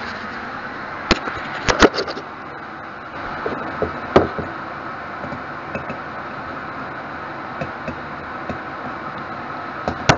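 Kitchenware being handled on a counter: sharp knocks and clinks, with one about a second in, a quick cluster just before two seconds, a strong one about four seconds in and another near the end, over a steady hiss.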